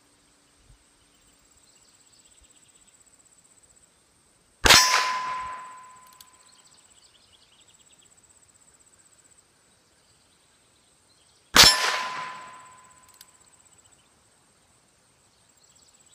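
Two .22 LR shots from a Ruger Single Ten single-action revolver, about seven seconds apart. Each crack is followed by a ringing clang that fades over a second or so, the sound of a steel target being hit.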